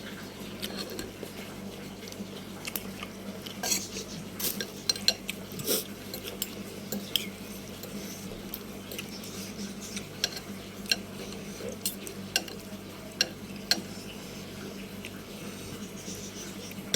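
Metal utensils clinking and scraping against a bowl, irregular light clinks over a steady low hum.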